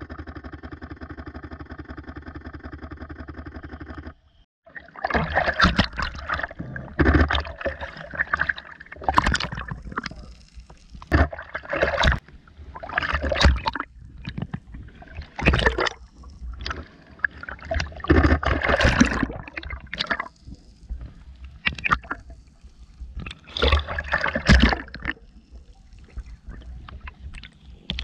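A steady drone for about the first four seconds that cuts off suddenly, then water splashing and rushing against a GoPro in irregular surges every second or two.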